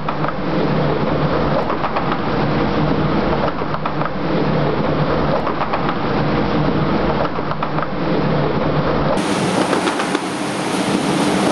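Die-cutting machine running: a steady, loud mechanical din with a clatter of small ticks. About nine seconds in the sound changes abruptly, losing its low rumble.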